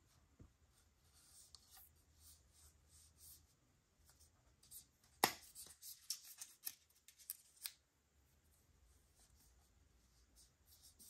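Hands unpacking an Apple TV box: soft rustling and sliding of packaging. About five seconds in there is a sharp tap, then a quick run of small clicks and rustles lasting a couple of seconds.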